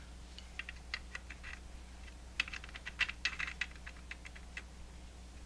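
Light metal clicks and taps in irregular clusters, from scope rings being handled and set into the slots of a rifle's scope rail.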